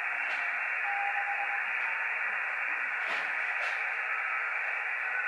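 Amateur radio transceiver's speaker giving a steady band-limited hiss of receiver band noise. A faint steady tone sounds briefly about a second in, and there are a couple of faint ticks around three seconds.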